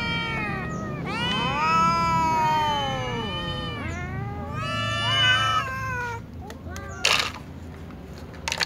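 Cat meowing pitifully for food at mealtime: a couple of long, drawn-out meows that rise and fall in pitch. Near the end comes a brief rustle and clink as dry food is handled over a glass dish.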